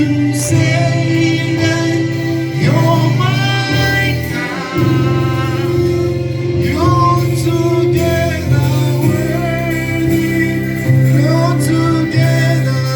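Gospel song: voices singing over instrumental backing, with held bass notes that change every second or two.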